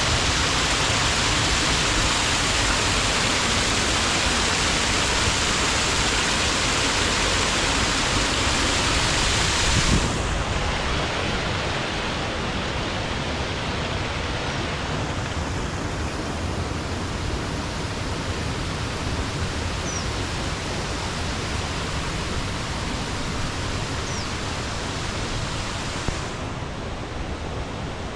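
Steady rushing of falling water from a waterfall. It drops suddenly in level about ten seconds in and again near the end.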